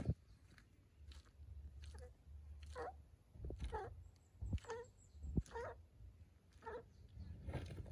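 Komodo dragon swallowing a whole chicken carcass: short gulping sounds repeated about once a second, with a few dull thumps.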